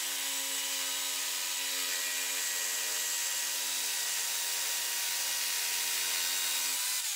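TACKlife TJS02A barrel-grip jigsaw running steadily as it cuts through a pine board, with a steady motor whine over the noise of the blade. Near the end it is switched off and winds down, dropping in pitch.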